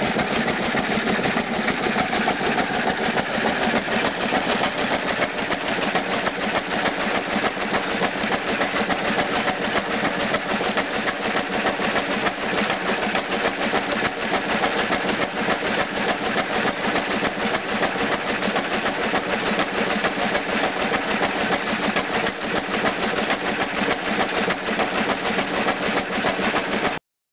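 Unrestored antique Cushman engine running steadily and driving a Hardie three-plunger water pump, a fast, even mechanical clatter of engine and pump strokes. The sound cuts out briefly just before the end.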